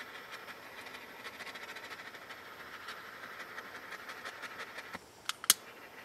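Small hand-held butane torch hissing steadily as it shrinks heat-shrink tubing over a freshly crimped battery cable lug, then shutting off after about five seconds. Two sharp clicks follow near the end.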